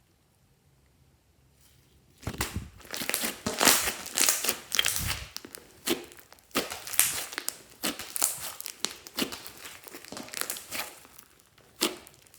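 Slime being squeezed and stretched by hand, with dense irregular crackling and popping. It starts about two seconds in after near silence and runs on with short pauses.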